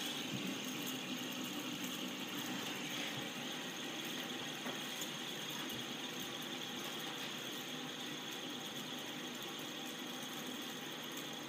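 Fidget spinner spinning on a wooden tabletop, its ball bearing giving a steady mechanical whir that very gradually gets quieter.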